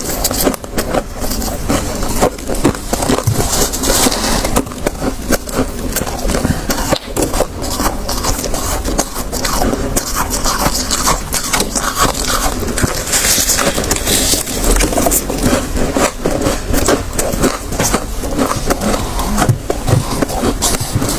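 Soft freezer frost crunching as it is bitten and chewed, mixed with the crackle of a gloved hand squeezing and scooping handfuls of it, picked up close by a lapel microphone. The crunches come densely and without pause.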